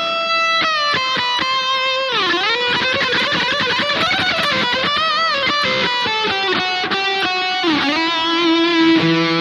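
Distorted lead electric guitar on a Harley Benton Fusion, played through a high-gain Fractal Audio FM9 tone: a run of quick picked notes near the start, then sustained notes with pitch bends and wide vibrato, ending on a long held note.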